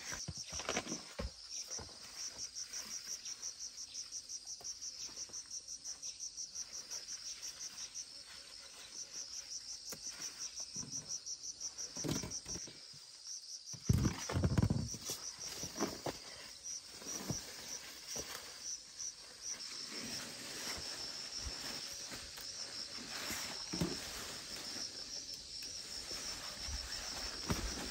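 Insects chirping in rapid, evenly spaced high-pitched pulses, with rustling of leaves and vines and a few soft knocks as vegetables are picked among the plants. The handling noise is loudest about halfway through.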